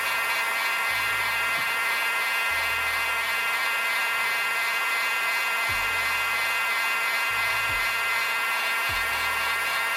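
Digital heat gun blowing hot air steadily at about 150 °C: a constant motor whine over a rush of air, warming the glued sensor so it can be lifted.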